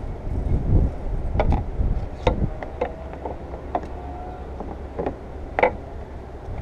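Wind rumbling on the microphone, with about six light, scattered clicks and knocks from parts being handled at the car.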